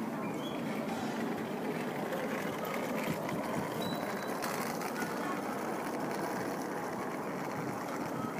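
Steady hubbub of an outdoor crowd, many voices murmuring at once with no single voice standing out.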